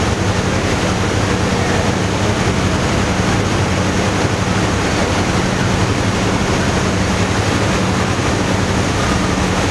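Churning propeller wake behind a moving boat, a steady rush of water with wind, over the boat's engine running with an even low hum.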